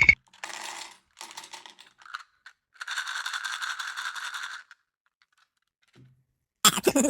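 Bursts of rapid clicking and rattling, like fast typing, with a short knock and a loud sudden sound near the end.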